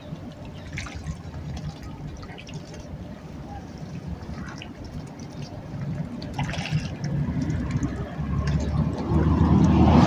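Shallow water lapping and splashing close to the shore, with a few small sharp splashes, growing louder over the last few seconds.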